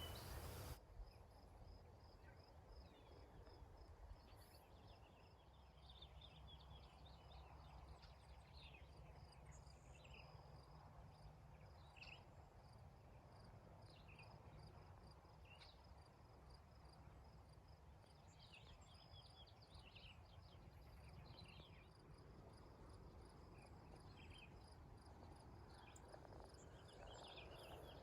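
Faint outdoor ambience: a cricket chirping in a steady, evenly pulsed rhythm, with scattered short chirps.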